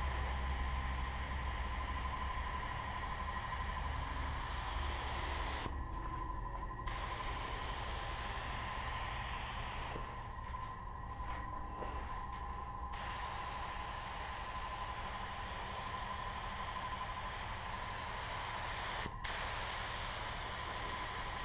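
Air-powered gravity-feed paint spray gun hissing steadily as it sprays white paint, cutting out briefly about six seconds in, again for a few seconds around the middle, and for a moment near the end as the trigger is let off.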